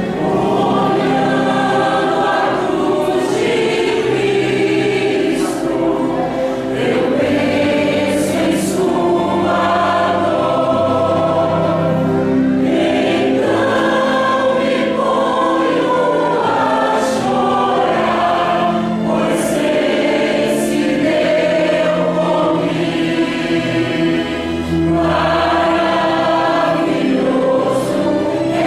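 A church choir singing in Portuguese over instrumental accompaniment.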